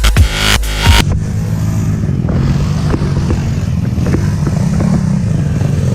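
Electronic music cuts off about a second in, giving way to an ATV engine running at a steady pace, with scattered knocks and clatter.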